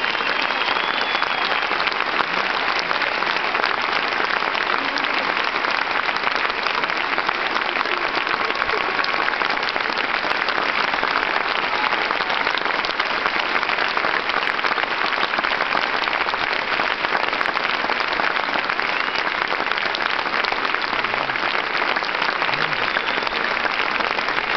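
A large theatre audience applauding, a dense, steady clapping that keeps an even level throughout.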